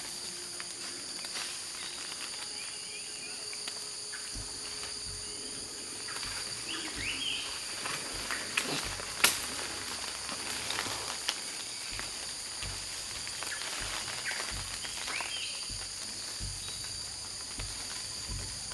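Steady high-pitched chorus of insects, with scattered low thumps and a few brief rising chirps.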